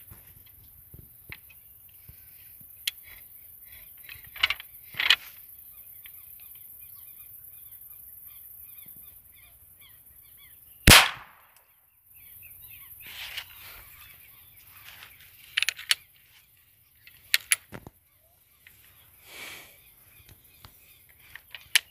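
A single shot from a muzzle-loading percussion shotgun about halfway through, sharp and loud with a short ringing tail, after a stretch of birds chirping. Several light metallic clicks from the gun's hammer lock follow. The hunter says the shot broke the gun and the hammer has no force left.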